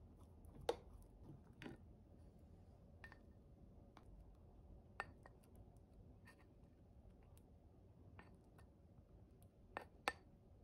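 Near silence broken by a few soft taps and clicks of a plastic rice paddle against a rice cooker's inner pot and a ceramic bowl while scooping cooked rice, the clearest about a second in and two close together near the end.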